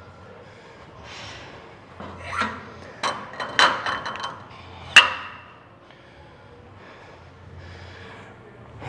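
A 10-pound weight plate being loaded onto the sleeve of a Smith machine barbell: a few metallic clinks and scrapes, ending in one sharp clang about five seconds in.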